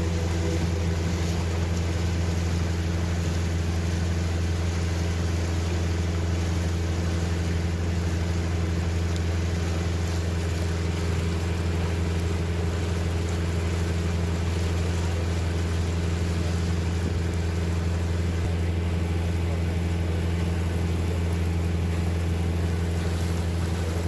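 A river boat's engine running at a steady low hum while under way, over an even hiss of water moving along the hull.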